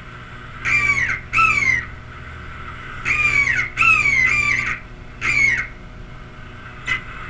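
A series of harsh, bird-like squawks, mostly in pairs, each call sliding quickly down in pitch, over a steady low hum.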